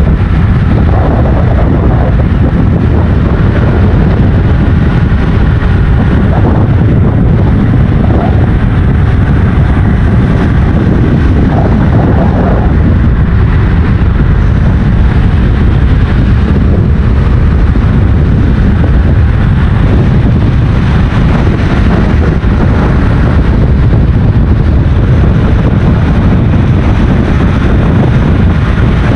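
Loud, steady wind noise buffeting the microphone of a camera moving at speed alongside road cyclists descending a highway.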